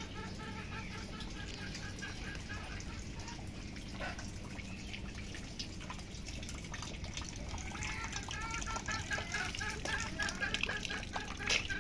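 Steady water noise, with an animal's call: short pitched notes repeated about four times a second, heard near the start and again from about eight seconds in.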